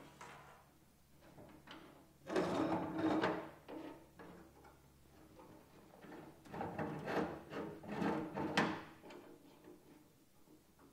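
Stainless-steel camp kitchen box being unfolded by hand: its metal legs and frame clank and rattle. The noise comes in two bursts, about two seconds in and again from about six and a half to nine seconds, with quieter handling between.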